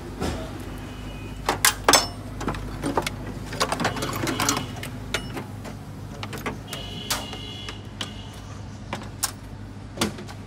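Scattered clicks, knocks and plastic rattles of hands working parts loose in a Suzuki Mehran's engine bay, including pulling off the ribbed rubber air intake hose, over a steady low hum.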